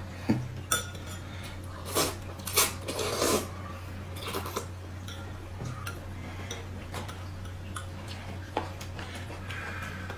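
Tableware clinking while a spoon stirs in a glass cup and chopsticks work a paper cup of noodles, with a few loud slurps of noodles about two to three seconds in.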